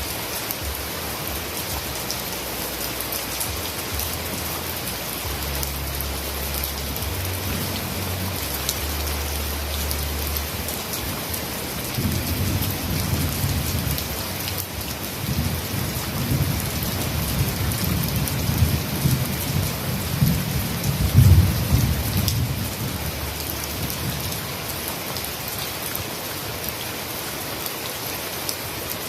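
Heavy rain falling steadily, with a low rolling rumble of thunder that builds through the middle, is loudest about two-thirds of the way through, and then fades back under the rain.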